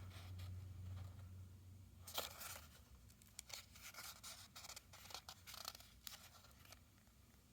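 Pages of a small paper instruction manual being flipped: faint, scattered paper rustles and page flicks, the loudest about two seconds in.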